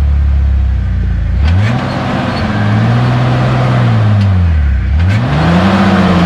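Off-road Jeep engine idling, then revving up about a second and a half in, easing off and revving again as it crawls up a rock ledge. A few sharp knocks sound over the engine.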